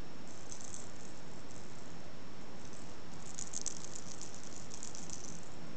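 Light, high-pitched rattling in two spells, a short one near the start and a longer, louder one a little past halfway, over a steady hiss.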